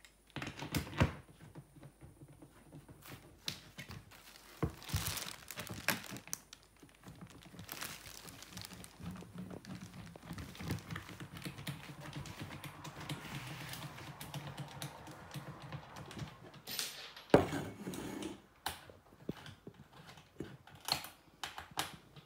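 Scattered clicks and knocks of wooden legs and small plastic fittings being handled and fitted together while a baby changing table is assembled, with a louder knock about a second in and another near seventeen seconds, and some rustling of plastic wrapping.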